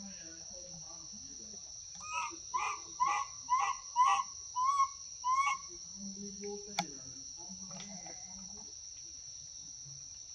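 Steady high-pitched insect drone, over which a bird gives a quick run of about nine short, evenly spaced hooked call notes from about two to five and a half seconds in. A single sharp click follows about a second later.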